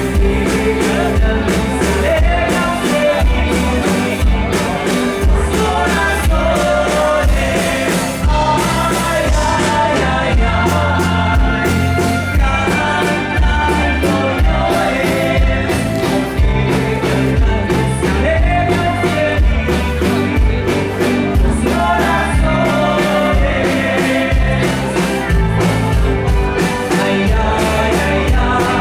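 Live rock band playing, with a singing voice over bass and regular drum beats.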